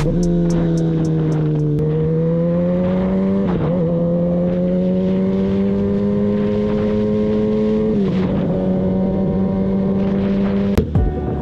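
Kawasaki ZX-10R inline-four engine running steadily at cruising speed, its pitch easing up and down, with brief breaks in the note about two, three and a half and eight seconds in. Music with a beat comes in near the end.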